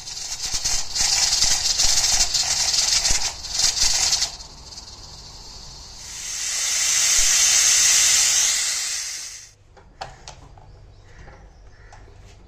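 Pressure cooker letting off steam through its lid valve: a loud hiss for about four seconds, then after a short lull a second hiss that swells and fades, stopping suddenly about nine and a half seconds in. This is the pressure being released after cooking so that the lid can be opened.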